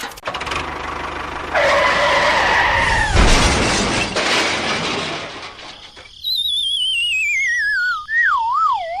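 Cartoon-style sound effects: a loud crash with a breaking, shattering noise about three seconds in, then a whistle that wobbles as it falls in pitch, running for about four seconds near the end.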